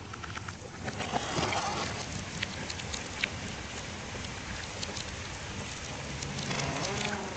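Steady rain falling on leaves and surfaces, with many separate drips ticking close by.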